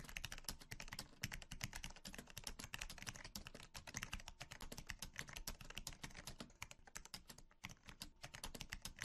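Faint, fast computer-keyboard typing: a quick, unbroken run of key clicks.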